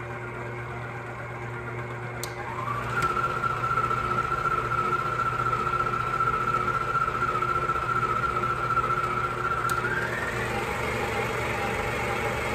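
Electric stand mixer running, its paddle beater kneading bread dough in a steel bowl. The motor whine steps up in pitch and gets louder about two and a half seconds in as the speed is turned up, then rises again near the end, each time just after a light click.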